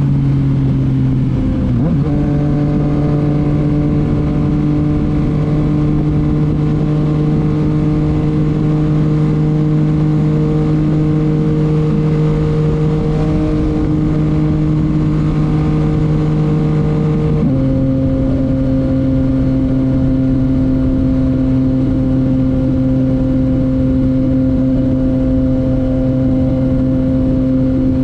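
Yamaha MT-09's inline three-cylinder engine through a titanium Akrapovic exhaust, running at steady revs. There is a brief dip and recovery about two seconds in, and the revs step down abruptly about two-thirds of the way through.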